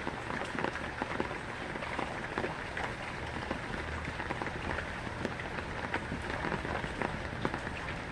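Heavy rain falling steadily on a surface, a dense hiss with many individual drops ticking.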